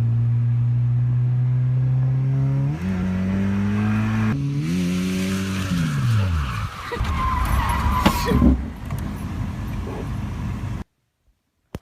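Mazda Miata four-cylinder engine held at high revs, stepping up twice, then dropping off as the car slides, with tyre squeal from drifting. The sound cuts off suddenly near the end.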